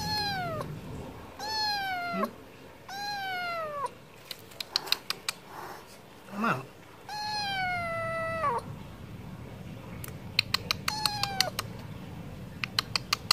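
Stray tabby kitten meowing five times, each cry falling in pitch, the longest about a second and a half. Between the cries come quick runs of sharp clicks.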